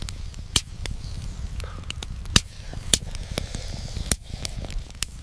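Crackling fire, with many irregular sharp pops over a steady low rumble.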